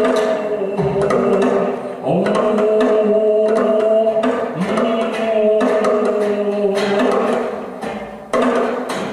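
Wordless sound-poetry vocalising: a man's voice holds long, low droning tones into a microphone, each new note sliding up at its start, about 2 s and 4.5 s in. Frequent sharp percussive clicks and taps run over the drone.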